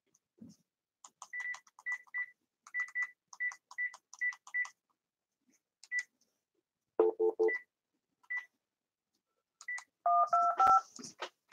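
Phone keypad being dialed: a quick run of about a dozen short key beeps with clicks, three more short beeps a few seconds later, then touch-tone dialing beeps near the end.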